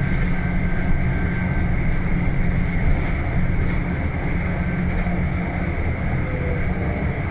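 Scania N280UB city bus's compressed-natural-gas engine running with a steady low drone, heard from inside the passenger cabin together with road noise as the bus drives along.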